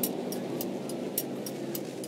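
Background music with a quick, steady beat of short high ticks over a hissing wash.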